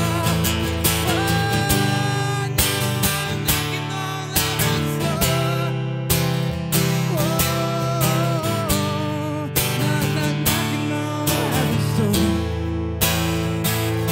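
Acoustic guitar strummed in a steady rhythm, with a man's voice singing long, wavering wordless notes over it.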